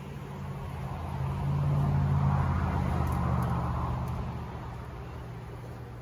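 A motor vehicle passing by, growing louder to a peak about two seconds in and then fading away, over a steady low hum.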